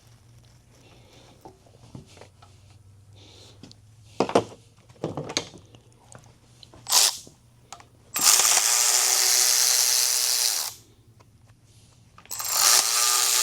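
Cordless power tool run in two bursts of about two and a half seconds each, spinning up and winding down each time, with a few short clanks of metal tools or parts before them.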